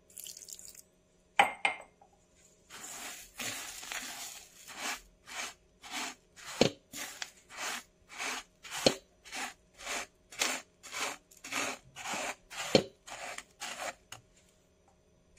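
A short pour of water onto sugar in a pan, then a silicone spatula stirring the wet sugar crystals to start a caramel. The scraping strokes come about two a second, with a few sharper knocks of the spatula against the pan.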